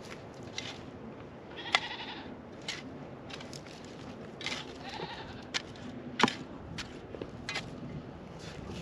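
Goats bleating, two drawn-out calls, among several sharp knocks; the loudest knocks come about two and six seconds in.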